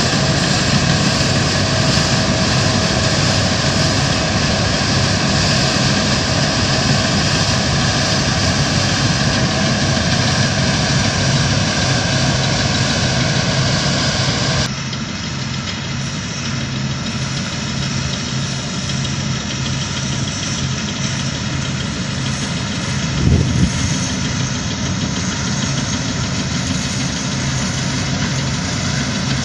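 Fortschritt E 514 combine harvester running while it threshes grain: a steady diesel engine and machinery hum with several held tones. About halfway the sound cuts abruptly to a quieter, lower engine sound, with a short louder rumble late on.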